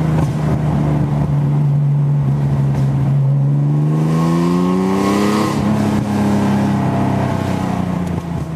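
Car engine running under way, its note easing slightly, then rising as it accelerates and dropping back about five and a half seconds in before holding steady.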